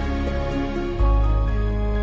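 Calm, tender new-age background music of sustained notes, with a deep bass note coming in about a second in.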